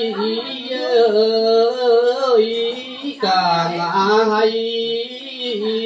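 A voice singing lượn, the Tày-Nùng folk song style, drawing out long held vowel notes whose pitch wavers and bends, with a short break about three seconds in.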